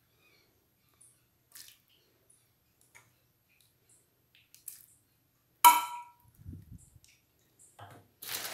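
Metal serving spoon handling meat sauce in cookware: faint soft scrapes and taps, then one sharp ringing clink of the spoon on the dish or pan about five and a half seconds in. A rustle starts near the end.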